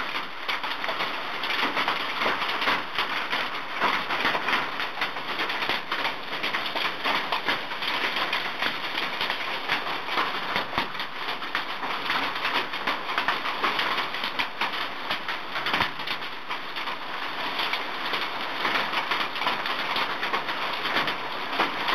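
A hailstorm: a dense, steady clatter of countless large hailstones pelting down with rain, loud and unbroken.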